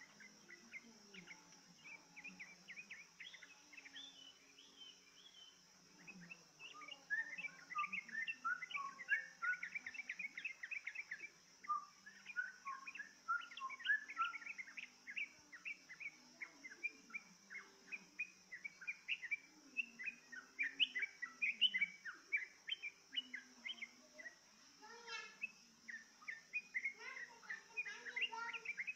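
Yellow-vented bulbul (trucukan) song played as a lure: quick, bubbly chirped phrases, sparse for the first few seconds, then dense and continuous from about six seconds in. A steady high hiss lies underneath.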